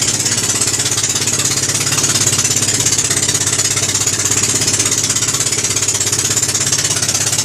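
Boat engine running steadily, heard from on board, with a fast, even pulsing beat and a constant hiss over it.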